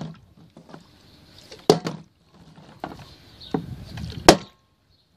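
Plastic drink bottle being flipped and knocking down onto wooden deck boards, a handful of separate hollow thuds, the loudest near the end.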